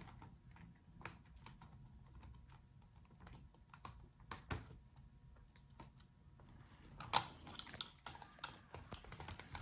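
Faint, scattered light clicks and taps of hands and plastic parts being worked inside an opened laptop as the speaker cable is freed from its routing.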